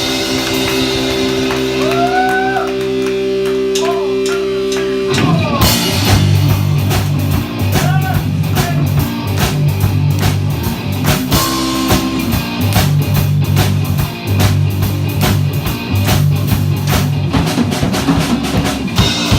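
Rock band playing: a held guitar chord with bent, gliding notes, then drums and bass come in about five seconds in with a steady beat that runs on until the music stops at the very end.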